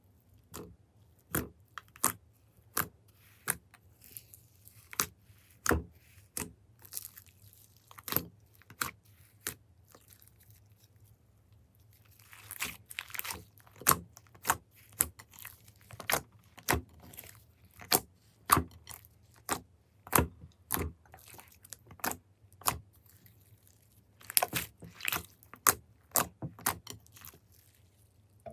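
Glossy slime being pressed and kneaded by hand, making sharp wet clicks and pops at an uneven pace of one or two a second, coming faster about halfway through and again near the end.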